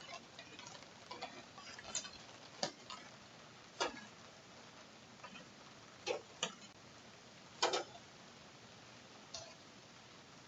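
A series of short, sharp clicks and taps at irregular intervals, about nine in all, over a faint steady background hiss.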